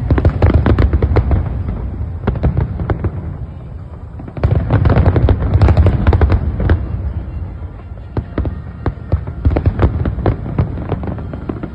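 Fireworks display going off: rapid volleys of bangs and crackles over a low rumble. There is one dense barrage at the start and another about four and a half seconds in, then scattered single bangs.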